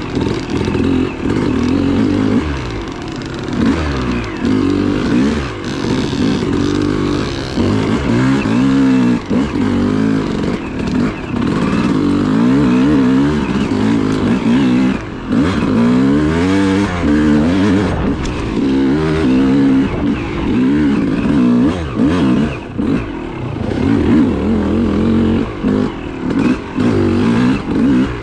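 Yamaha YZ250 two-stroke single-cylinder dirt bike engine being ridden along a trail, its revs rising and falling over and over as the throttle is worked on and off.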